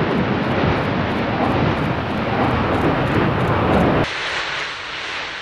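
Explosive volcanic eruption: a loud, continuous rushing blast as gas, ash and glowing lava fragments jet from the vent. About four seconds in it cuts off abruptly, leaving a fainter rushing noise that fades.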